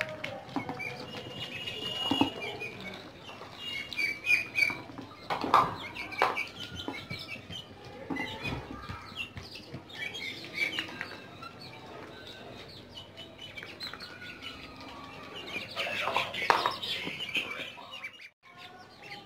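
Young chickens and ducklings feeding from a metal tray of chopped tomatoes: many quick beak taps and clicks on the tray and wet dabbling, with scattered short peeping chirps. The sound drops out briefly near the end.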